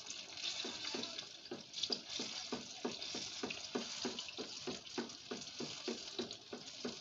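Battered banana fritters frying in hot oil in a pan: a steady sizzle with a quick, even run of small pops, about three or four a second, as a wooden spatula works the fritters.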